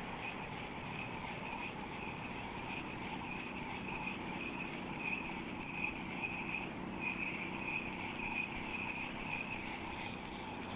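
Spinning reel being cranked close to the microphone: a steady whir with uneven ticking, over a low steady hum.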